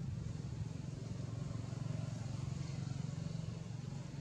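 Steady low hum of an engine running, unbroken, under faint outdoor background noise.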